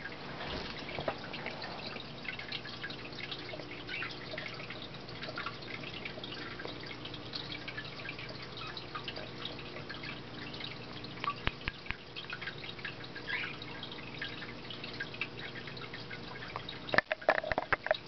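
Two cockatiels making scattered soft short chirps and clicks, over a steady low hum. About a second before the end there are several loud knocks as a hand reaches in and handles the birds.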